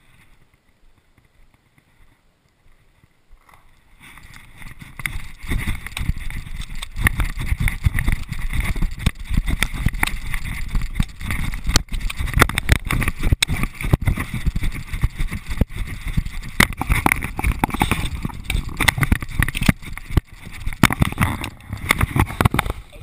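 Running footsteps over dry grass and ground, with the body-worn camera jostling and rubbing as it bounces: an irregular, steady clatter of footfalls and handling noise. It starts about four seconds in, after a quieter opening.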